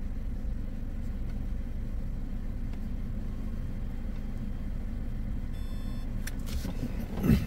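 Car engine idling with a steady low rumble, heard from inside the cabin while the car stands still. Near the end comes a short high electronic tone, then a loud thump.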